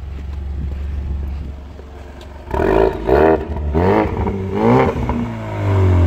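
A 2019 Ford Mustang's 2.3-litre EcoBoost turbo four-cylinder running through its active exhaust in normal mode. It idles, then is blipped about four times quickly from a couple of seconds in, each rev rising and falling, and drops back to a deep low drone.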